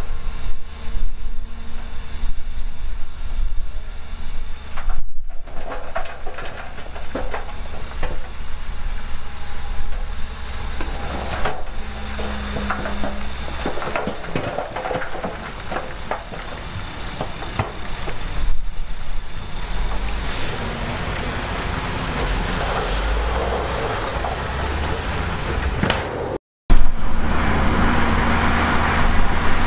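Heavy earthmoving machinery, a bulldozer and dump trucks, running steadily under load, with frequent clanks and rattles and a brief hiss about two-thirds of the way in. The sound drops out abruptly for a moment near the end.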